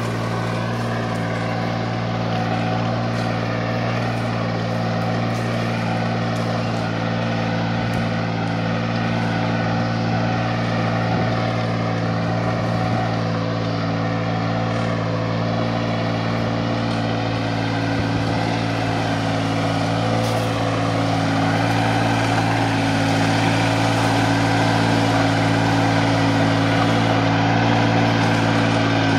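Taral VST 818 compact tractor's engine running steadily under load as it pulls a plough through the soil. It gets a little louder over the last third.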